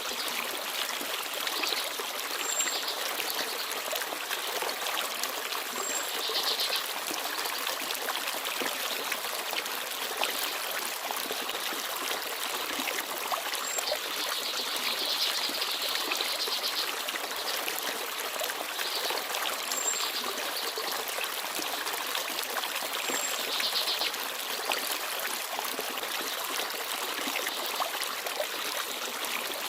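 Small forest stream babbling and trickling steadily. Small birds give brief high chirps now and then over it.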